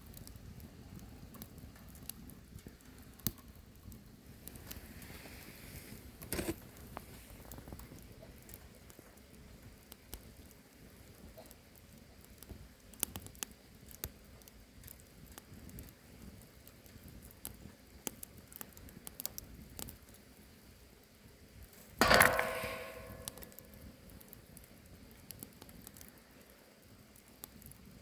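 Wood fire crackling in a homemade fire pit, with scattered small snaps and pops. Near the end comes one loud knock with a short metallic ring.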